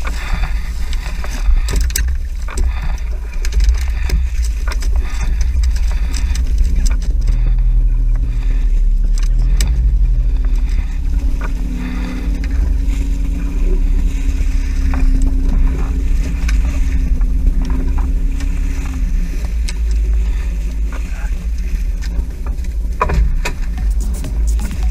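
Steady low rumble of wind on the microphone and the fishing boat's motor, with scattered knocks and thuds as the dorado and gear are handled on the deck.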